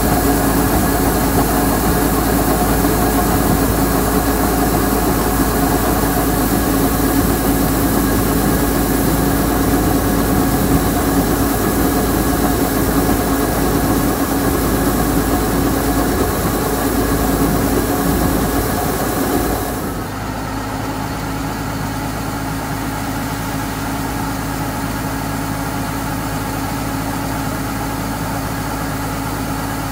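Kubota combine harvester running steadily while its unloading auger pours threshed rice into a sack. About two-thirds of the way through, the sound drops and the rushing noise thins abruptly, leaving the engine drone.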